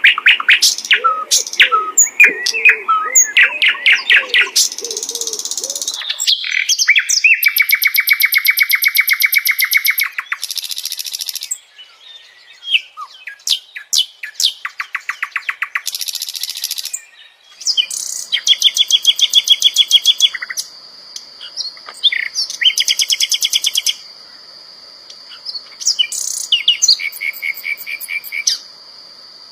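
Sikatan londo (flycatcher) singing: rapid, varied trills and fast rattling chatter phrases broken by short pauses. A steady high thin whine, like an insect, runs beneath the song from a little past the halfway point.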